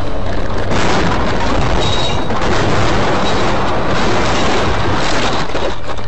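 Dashcam audio of a collision with a truck: a loud, distorted crash that goes on as a dense roar of impact and breaking glass for several seconds, with music faintly underneath.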